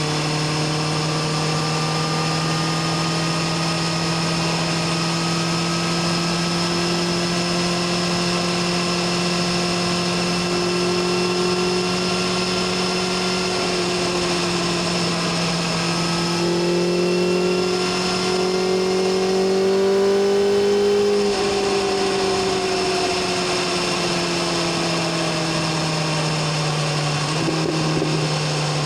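BMW S1000RR's inline-four engine and exhaust pulling at road speed, its pitch climbing slowly and growing louder as the bike gains speed. About two thirds of the way through the throttle is rolled off, and the pitch drops and keeps falling as the bike slows.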